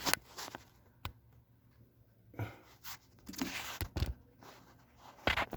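A few scattered light knocks and clicks with some rustling, like handling or moving things about, with quiet between them.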